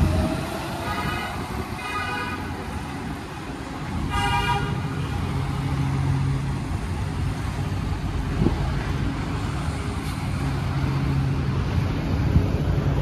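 Street traffic with engines running, and a vehicle horn tooting three times: two short toots about a second apart near the start, then a longer, louder toot about four seconds in.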